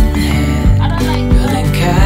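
Background music with a steady beat, a low drum hit about every two-thirds of a second.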